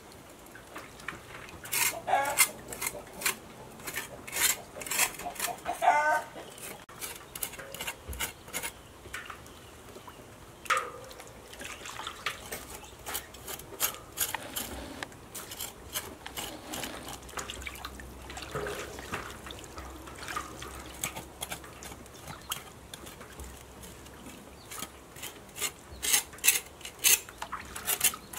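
A cleaver blade scraping the charred, singed skin of a pork leg in a basin of water, in quick rasping strokes that come in bursts, with some splashing. A chicken calls a couple of times near the start.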